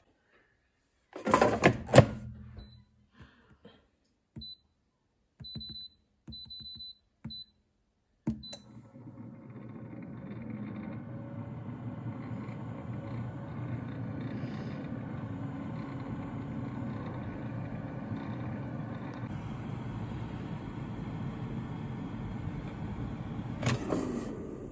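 Air fryer: a loud clatter about a second in as the basket goes in, then a row of short high beeps from the touch control panel as the settings are keyed in. After a click, the fan runs steadily, and near the end there is a knock as the basket is pulled out.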